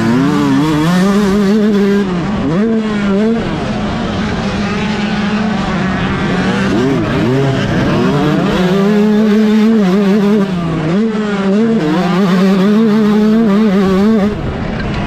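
Yamaha YZ125 two-stroke single-cylinder motocross engine under hard acceleration, its pitch rising through the revs and dropping sharply twice as the rider shifts or chops the throttle.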